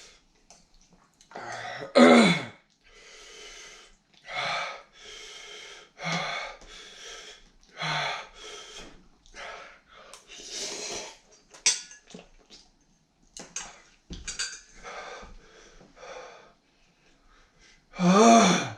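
A man breathing hard and wheezing through his mouth in a long string of sharp breaths, with a loud groan about two seconds in and another near the end. It is his reaction to the burn of extremely spicy ramen laced with Carolina Reaper pepper.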